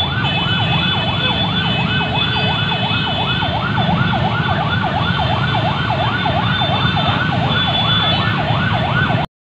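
Electronic siren in a fast yelp, about three rising-and-falling wails a second, over the low running of many motorcycle engines. The sound cuts off suddenly near the end.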